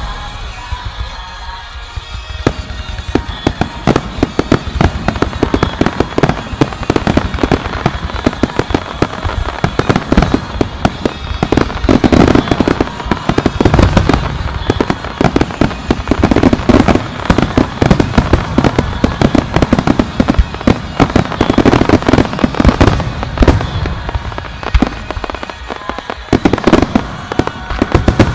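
Fireworks display in a rapid barrage: a dense run of shell bursts, bangs and crackling with hardly a gap, swelling into heavier clusters of booms every few seconds.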